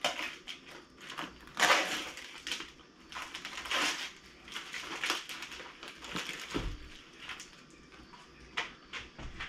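Plastic meat packaging crinkling and rustling in irregular bursts as ground veal is scraped out of its plastic tray into a stainless steel mixing bowl.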